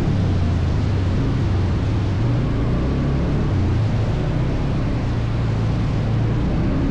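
ATV engine running steadily, a low, even drone over a rushing noise.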